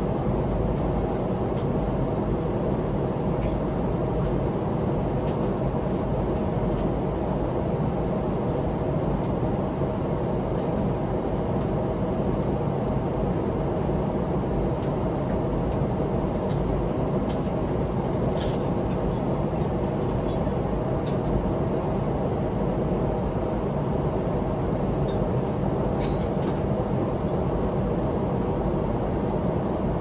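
Steady low cabin roar of a Boeing 777-300ER airliner in flight, with a few faint short clicks scattered through it.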